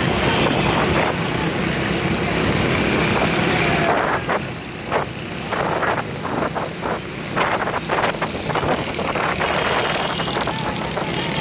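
Several motorcycle engines running together in a dense pack of bikes, with wind buffeting the microphone on a moving motorcycle.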